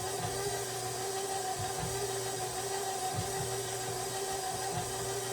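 Electric kitchen mixer running steadily at one speed, beating cake batter in a bowl, with a constant motor hum.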